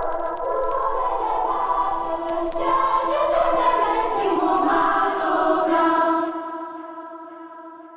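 Music with choir-like singing over sustained held chords, fading out over the last two seconds.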